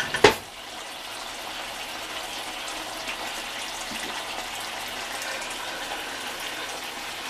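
Kelp stewing in a pan on the stove, a steady sizzling hiss. A fork clicks against the pan twice at the start.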